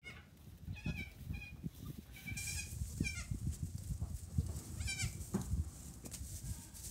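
Nigerian Dwarf goat kids bleating: several short, high-pitched bleats, one longer about two seconds in, over soft low thumps.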